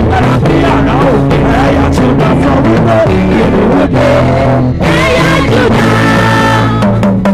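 Live gospel band music with singing: bass guitar and keyboard chords under a sung vocal line that glides in pitch, with held notes a little past the middle.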